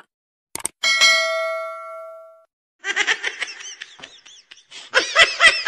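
A click, then a bright notification ding from a subscribe-button sound effect that rings out and fades over about a second and a half. Then a baby monkey being tickled squeals in rapid high-pitched chirps, each rising and falling, louder near the end.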